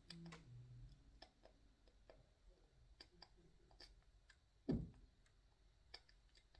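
Faint, scattered clicks of plastic power-supply cable connectors being handled and sorted, with one louder dull thump a little under five seconds in.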